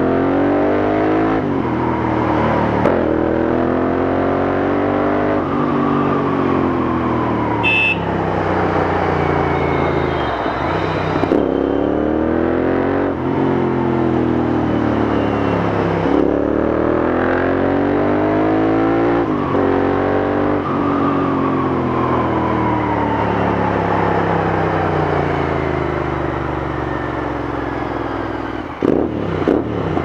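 Royal Enfield Interceptor 650's parallel-twin engine through a Red Rooster slip-on exhaust. It revs up through the gears, rising in pitch and dropping at each shift, then falls away as the bike rolls off. Near the end come a few sharp pops and crackles on the overrun.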